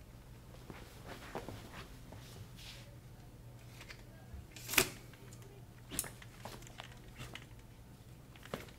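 Faint handling clicks and knocks from a toy lightsaber, the sharpest snap about five seconds in as its collapsible blade is flicked out, with two lighter clacks after it. A low steady electrical hum runs underneath.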